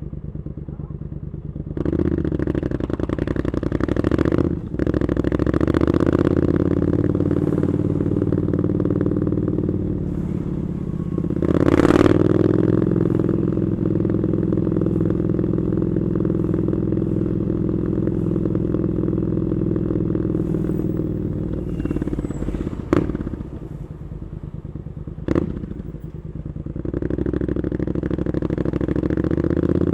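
Triumph Scrambler 900's parallel-twin engine through an Arrow exhaust, ridden in traffic: it pulls away from low revs, rises again with a short gap at a gear change, swells around the middle, then holds a steady cruise. Near the end it drops back with two sharp clicks before picking up again.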